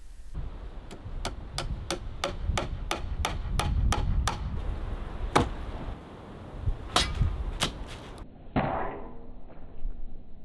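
A run of sharp metallic hammer strikes, evenly spaced at about three a second, then a few louder single strikes. Near the end, a sword blade chops through a pineapple.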